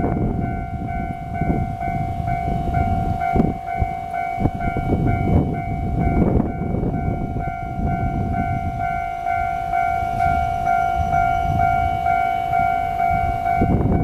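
Railway level-crossing warning bell ringing steadily, its electronic chime repeating about twice a second, over an uneven low rumbling noise.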